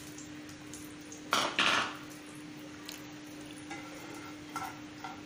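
Chopped dates frying in a little ghee in a pan while a spoon stirs and scrapes against the pan, with a louder burst of noise about a second and a half in and a few light clinks after.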